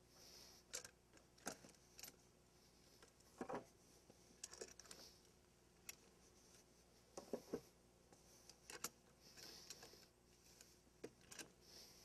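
Faint, scattered clicks, knocks and brief scraping as a steel log turner's hook grips and rolls a heavy green elm log up wooden ramps.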